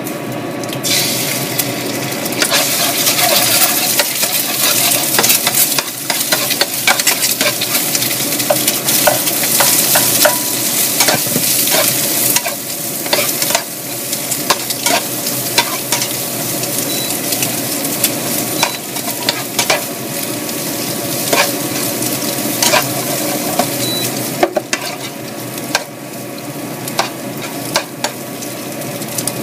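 Food frying in hot oil in a frying pan, the sizzling starting suddenly about a second in, while a spatula scrapes and knocks against the pan many times as the food is stir-fried.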